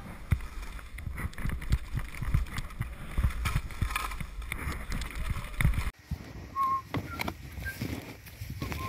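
Wind buffeting a helmet-mounted camera's microphone, with skis hissing and knocking through powder snow on a fast descent. About six seconds in the sound cuts to a quieter stretch with a few short, high chirps.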